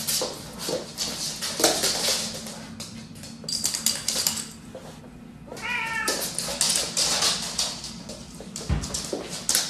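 Paws and claws scrabbling and skittering on a hardwood floor as a husky and a cat play-fight, with one short, wavering cat meow about six seconds in.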